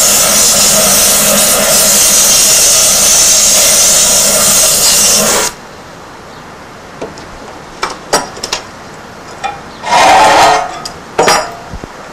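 Hose-fed gas torch burning with a loud, steady rushing hiss as it heats a small box oven, cut off suddenly about five and a half seconds in. Then a few knocks and a short clatter as the torch and other items are laid down on a wooden bench.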